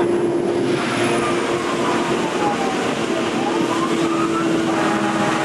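Fire engine under way, heard from inside the cab: steady engine drone and road noise, with the siren wailing, its pitch falling and then rising again about halfway through.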